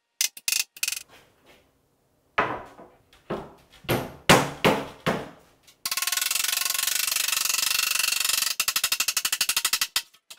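About six hard knocks on the wooden dovetailed case, each ringing briefly, then a small handheld tool scrubbed quickly back and forth along the dovetail pins, first as a continuous scratchy rasp and then as fast, even strokes.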